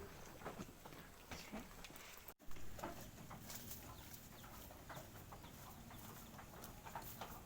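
Faint farmyard animal sounds: many short, scattered clicks and taps, with a brief break about two and a half seconds in.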